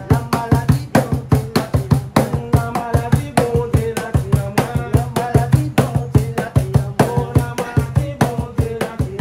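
Live band music: a hand-played box drum (cajón) keeps a fast, even beat under a man singing into a microphone.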